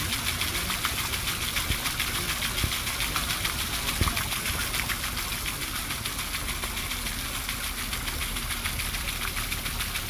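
Steady rush of splashing water with a fast, even flutter.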